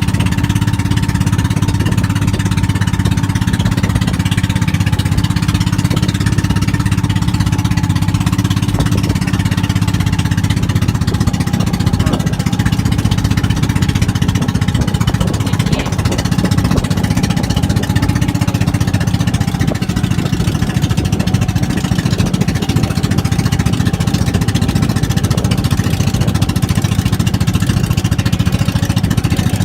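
Small boat engine running steadily and loudly, with a fast, even rattling beat and no letup.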